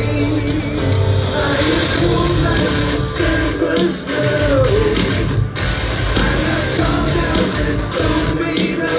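Hard rock band playing live and loud through a festival PA, heard from among the audience: drums, guitars and singing.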